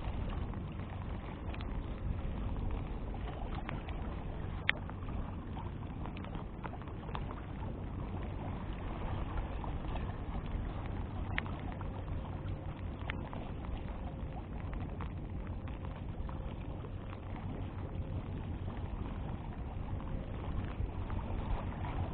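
Steady low rumble of wind buffeting the microphone outdoors, with a few faint, scattered clicks.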